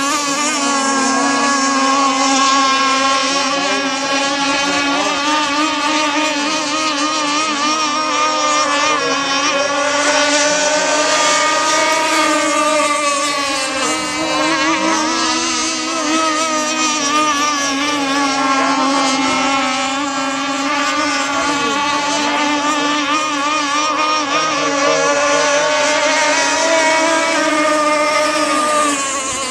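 Several gas-powered radio-controlled racing catamarans running flat out together, their small two-stroke engines making a high whine of many overlapping pitches that waver up and down as the boats pass and turn.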